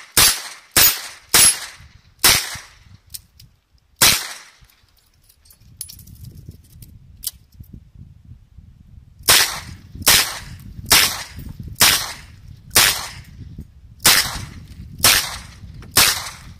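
Smith & Wesson 929 9mm revolver firing: five shots in the first four seconds, a pause of about five seconds, then eight shots at about one a second.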